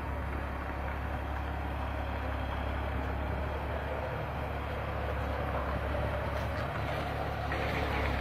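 Steady low rumble of a heavy vehicle engine, with no sharp events.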